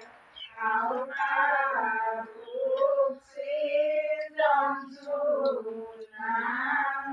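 Women singing an Assamese devotional nam without instruments, in long held phrases with short breaks between them.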